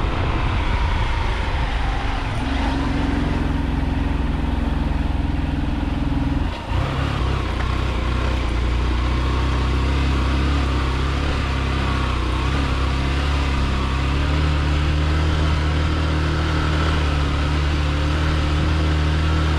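Motorcycle engine running steadily while riding, with a short drop in level about six and a half seconds in.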